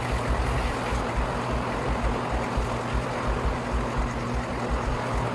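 Steady rushing noise with irregular low rumbling buffets, like air moving across the microphone, over a faint steady hum.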